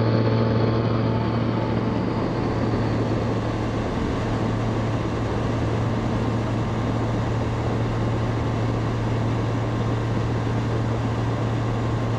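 Rotax 912ULS flat-four engine and propeller of a Zenith STOL CH 701 running at full takeoff power as the plane lifts off: a steady drone over a broad rush of noise.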